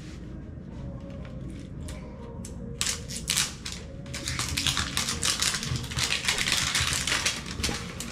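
Crinkling and tearing of a toy surprise egg's wrapping being peeled off by hand: a few scattered crackles, then from about three seconds in a dense, rapid crackle that grows louder toward the end.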